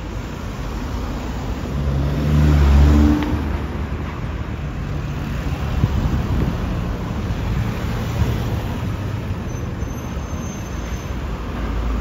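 Road traffic at a city junction: cars and a single-deck bus driving past close by, their engines running over a steady traffic rumble. The loudest pass, with a low engine drone, comes about two to three seconds in.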